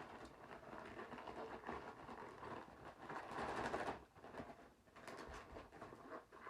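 Packaging rustling and tearing as a hard-to-open shipping package is worked open by hand. It is loudest about three to four seconds in, with a few short sharp crinkles near the end.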